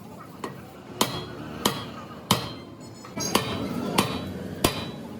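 Hammer striking metal: about seven sharp blows, roughly one every two-thirds of a second, with a short pause midway where a brief metallic ring is heard.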